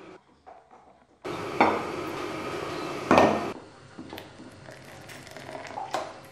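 Coffee being made with an AeroPress: knocks and clinks of the brewer and mug, the loudest about a second and a half in and about three seconds in, over a stretch of steady rushing noise between them. Quieter scattered clicks follow.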